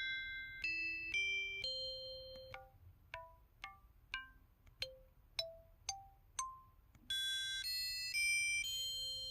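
KTF-TR2000 mobile phone key-press tones: a series of short electronic chime notes at changing pitches. First a few held notes, then single short dings about twice a second, then from about seven seconds in a brighter, denser run of notes.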